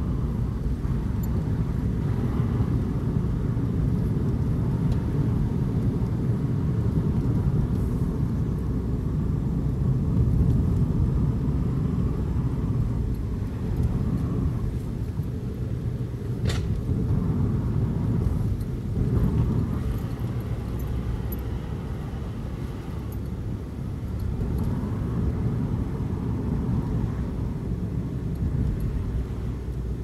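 Car being driven, heard from inside the cabin: a steady low rumble of road and engine noise. A single sharp click comes about halfway through.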